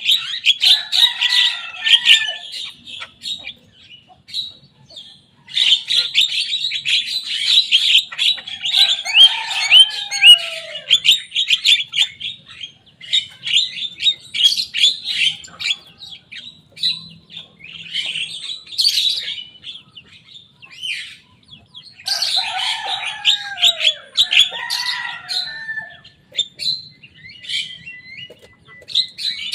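Young Javan myna singing in full voice: long bursts of rapid chattering notes mixed with lower falling whistles, with short pauses between bursts.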